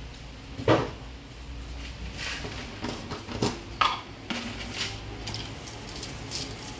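Kitchen utensils and dishes clinking and knocking, about seven short sharp clinks with the loudest about a second in, over a low steady hum.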